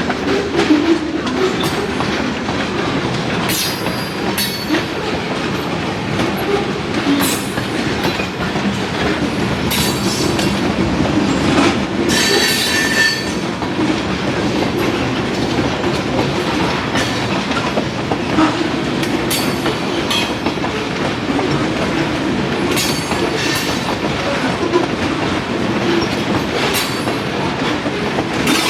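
Freight train rolling past, its wheels clicking over rail joints again and again. A brief wheel squeal comes about twelve seconds in.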